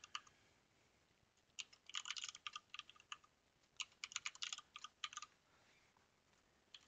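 Typing on a computer keyboard: two quick runs of keystrokes with a short pause between them, and a few more keystrokes near the end.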